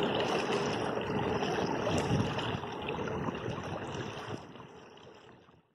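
Wind buffeting the microphone with choppy water lapping and splashing around a kayak, fading out near the end.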